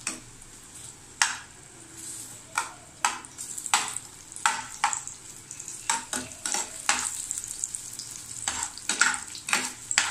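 Sliced onions sizzling in hot oil in a metal frying pan as they are fried to brown them, stirred with a white spatula that scrapes and clacks against the pan in repeated strokes, about one or two a second.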